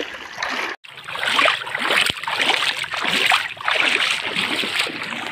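Legs wading through shallow seawater, splashing in a steady rhythm of about two steps a second after a brief dropout near the start.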